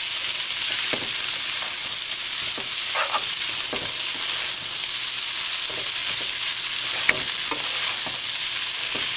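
Chicken fried rice sizzling in a hot pan as it is stirred and tossed, a steady hiss with occasional short scrapes of the utensil and a sharp clink about seven seconds in.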